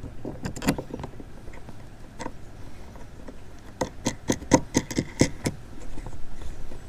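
Sharp hard-plastic clicks and knocks of kayak mounting hardware (YakAttack track mounts and RoboGrip holders) being handled and fitted: a few scattered clicks, then a quick run of them about four seconds in.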